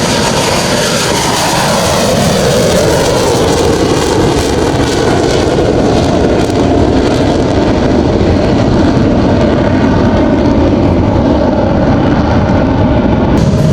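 Fixed-wing aircraft flying past at an air show, its engines loud and steady, with the pitch falling over the first few seconds as it passes.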